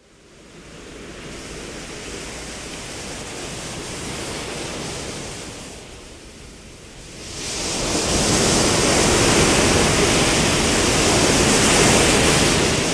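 Sound of ocean surf washing in, in two swells: a first wave building over several seconds and easing off, then a louder second one from about halfway through.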